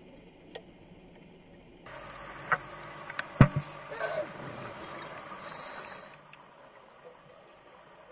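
Muffled underwater noise: a hiss with a handful of sharp knocks, the loudest about three and a half seconds in, and a brief wavering muffled sound just after. The hiss drops away about six seconds in.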